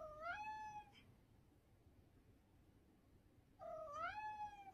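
Domestic cat meowing twice, about three and a half seconds apart. Each meow dips briefly in pitch, then rises and holds for about a second.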